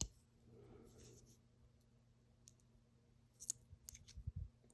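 Faint small clicks of loose pins being worked out of a dimple lock's cylinder core: one sharp click at the start, then a quick cluster of light clicks near the end.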